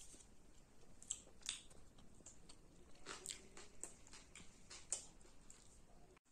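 Faint chewing and crunching of a pastry snack, heard as a series of scattered soft clicks.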